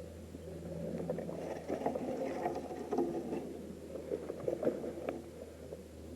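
Close rustling and scraping with scattered small knocks over a steady low hum, typical of a player's body and gear moving right against the microphone.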